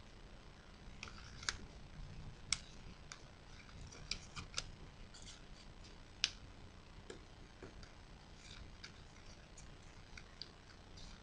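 Origami paper crackling as fingers crease and press its folds: a scatter of faint, irregular sharp crinkles and clicks.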